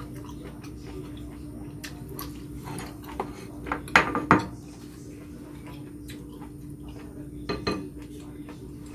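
Eating utensils knocking against dishes: wooden chopsticks and a spoon against a metal tray and a rice bowl. A few sharp clicks, the loudest two close together about four seconds in and another near the end, over a steady low hum.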